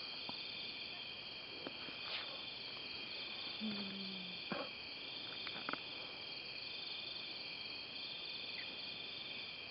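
Night insects, such as crickets, keep up a steady high chorus that swells and fades every second or two. A few faint clicks are heard in it.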